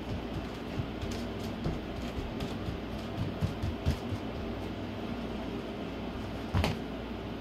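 Footsteps and thuds on a laminate wood floor over a steady low hum, several in the first few seconds, with one louder thump against the floor near the end.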